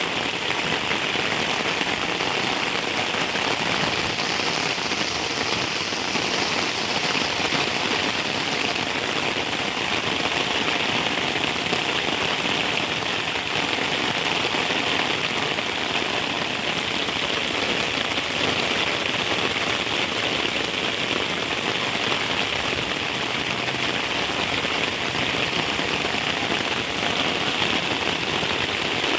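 Heavy rain falling steadily, an even hiss of rain on surfaces with no breaks or separate sounds.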